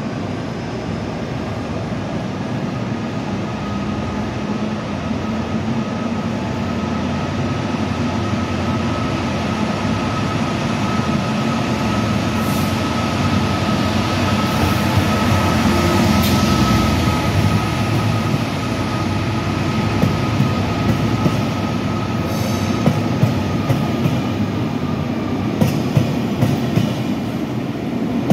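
A Class 66 diesel locomotive's EMD two-stroke V12 engine running with a steady whine as it draws a train slowly out past, loudest a little past halfway as the locomotive goes by. Near the end the coaches' wheels click over the rail joints.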